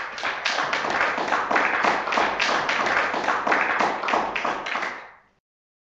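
Audience applauding, with dense, irregular clapping that cuts off suddenly about five seconds in.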